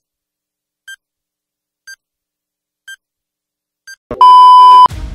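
Countdown timer beeps, one short beep a second, five times. About four seconds in comes a brief crackle of static, then a loud, steady TV colour-bar test tone that cuts off suddenly after well under a second.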